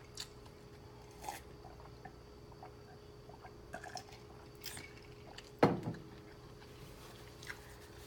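A person eating a meal of noodles with beef and broccoli close to the microphone: scattered soft, wet chewing and mouth clicks, with one louder, short wet mouth sound a little past halfway.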